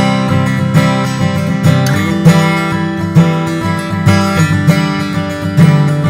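Martin D-42 dreadnought acoustic guitar strummed, chords struck again and again with the strings ringing on between strokes and one note held through the middle of the passage.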